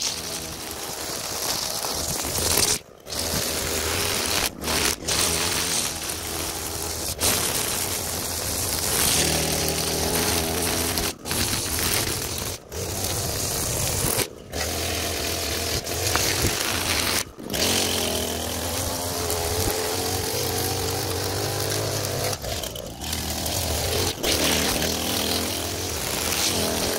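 String trimmer running and cutting grass and weeds along a walkway edge, its motor pitch rising and falling. Short sudden gaps break the sound every few seconds.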